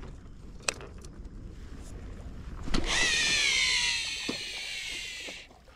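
Daiwa Tatula TW300XH baitcasting reel casting: a thump of the cast, then the spool whirring with a high whine that slowly falls in pitch for about two and a half seconds and stops suddenly. A couple of sharp clicks from tackle handling come before it.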